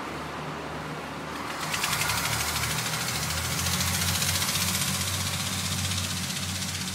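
Diesel engines of an Irish Rail Class 29000 diesel multiple unit running steadily, getting louder with a hissing rush about two seconds in.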